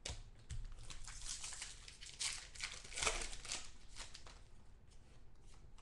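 Foil trading-card pack wrapper crinkling and tearing as a pack of football cards is opened by hand, in irregular crackly bursts.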